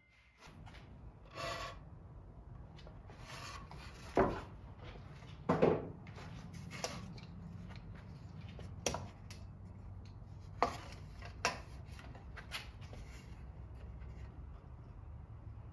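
Hand work on wood at the bench: irregular sharp knocks, with softer rubbing and scraping between them.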